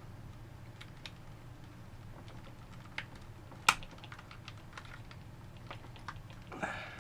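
Light plastic clicks and ticks as a spudger pries along the seam of a PS4 DualShock 4 controller's shell, working at its internal plastic clips. There is one much louder sharp snap about midway.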